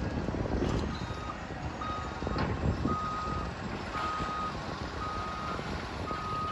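Reversing alarm on a heavy machine, beeping steadily at about one beep a second, over the low rumble of its diesel engine, with a few sharp clanks.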